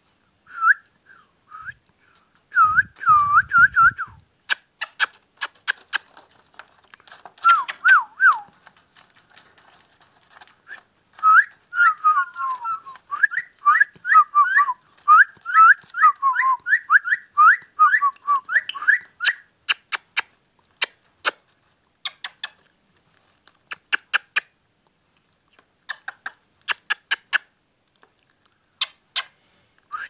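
Caged ringneck parakeet whistling and chattering: runs of short, wavering whistled notes, thickest in the middle of the stretch, with sharp clicks scattered between them.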